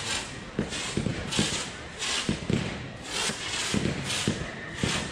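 F2 consumer firework batteries firing: a quick run of thumps, about three or four a second, from shots launching and bursting, with short hissing bursts between them.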